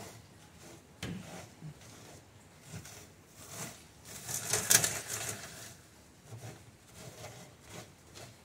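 Gloved hands rubbing dry Siberian motherwort seed heads and chaff across the wire mesh of a wooden seed-sifting screen: irregular scratchy rustling. There is a sharp tick about a second in and a louder, longer scrape around the middle.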